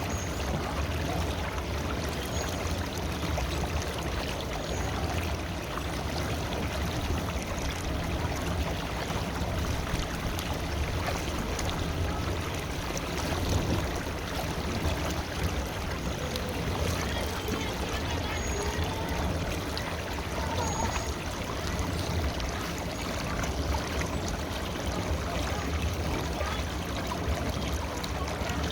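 River water flowing steadily, a continuous even rushing and splashing.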